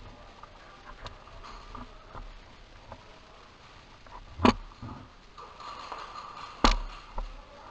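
Faint rustling movement, broken by two sharp cracks about two seconds apart, the second near the end.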